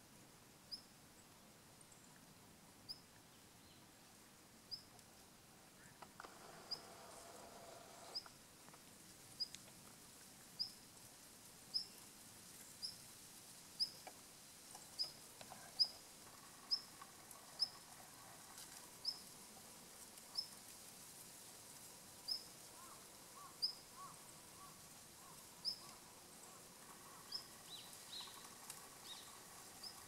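Male long-tailed rosefinch (Uragus sibiricus) giving its call note: short, high single calls repeated about once a second, a little faster near the middle.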